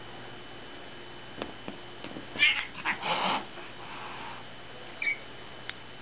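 A cat's angry yowl lasting about a second, starting a little over two seconds in, then a short high call near the end.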